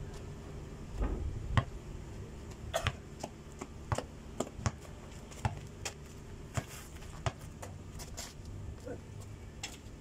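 A basketball shot at a backboard and hoop, then bouncing and dribbled on packed dirt: a string of irregular sharp knocks, the loudest about one and a half seconds in.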